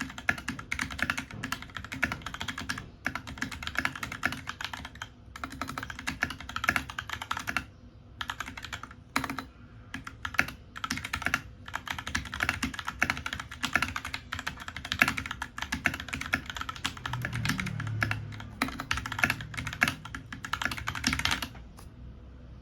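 Fast typing on a computer keyboard: a rapid, continuous run of key clicks with a few short pauses, stopping shortly before the end.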